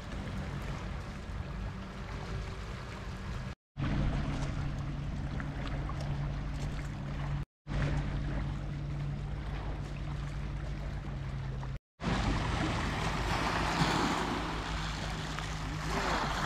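Seaside ambience on a pebble beach: wind on the microphone and small waves washing over the pebbles, with a steady low hum through the middle stretch. The sound drops out to silence three times, briefly.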